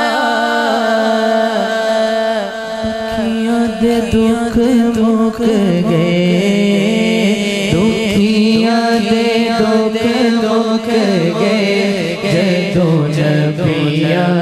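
A man singing a Punjabi naat into a microphone, with long ornamented notes that waver up and down in pitch.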